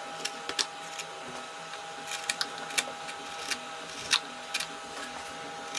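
Narrow hand carving gouge (a #11 veiner) pushed by hand through wood, cutting fine hair lines: a string of short, irregular scraping cuts and clicks.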